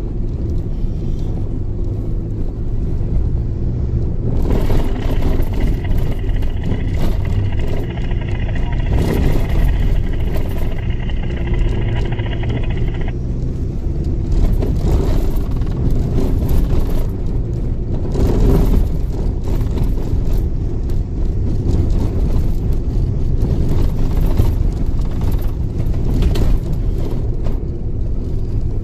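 A 4WD driving on a sandy, corrugated desert track, heard from inside the cabin: a steady engine and tyre rumble with frequent knocks and rattles. A thin high whine is heard from about four seconds in for roughly nine seconds.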